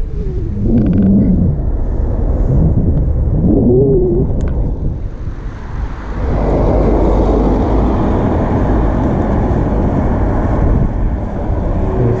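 Wind buffeting a bicycle-mounted camera's microphone while riding on asphalt, a low rumble with tyre noise that grows louder and steadier about six seconds in. Two brief wavering tones sound early on.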